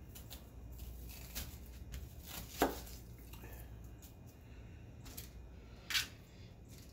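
Kitchen knife slicing an onion on a plastic cutting board: crisp cuts through the onion and light taps of the blade on the board, with two sharper knocks, one about two and a half seconds in and one near the end.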